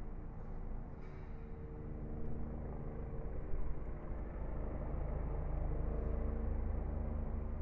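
Steady low rumble of a running vehicle, with several steady droning hums over it; it grows a little louder about halfway through.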